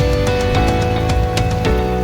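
Background music: sustained melodic notes over a steady beat, with a plucked or strummed guitar-like sound.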